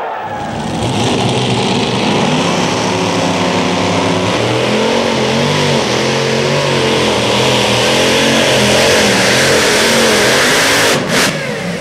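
Multi-engine modified pulling tractor with supercharged engines running flat out under load as it pulls the sled, its engine note wavering and growing louder. A short sharp burst cuts across the sound near the end.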